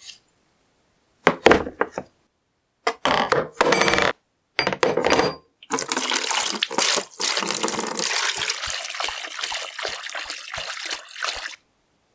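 Rusty iron vise parts knocking as they are set into a plastic tub, then thinned rust remover poured in, a long splashing pour filling the tub that thins out and stops near the end.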